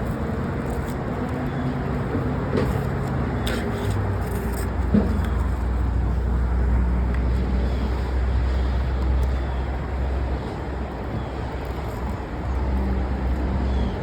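A car engine running close by with traffic noise around it: a steady low rumble that swells for a few seconds in the middle and then eases off.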